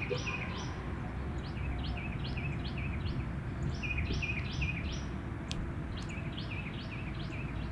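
A songbird singing phrases of four or five quick down-slurred whistled notes, a new phrase every second or two, over a steady low outdoor background noise.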